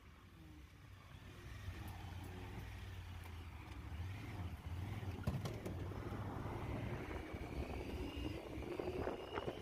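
2021 Honda Pioneer 1000-5 Deluxe side-by-side's parallel-twin engine running as the vehicle is driven, growing steadily louder, with one knock about five seconds in.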